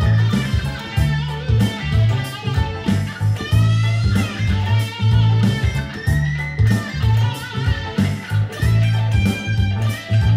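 Electric guitar playing a lead line with bent notes over a funk groove with a repeating bass line.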